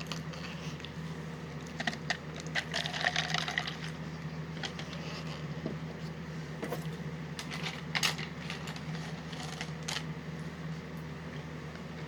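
Dry Hershey's Kisses cereal puffs being chewed, with scattered crunches in small clusters over a steady low hum.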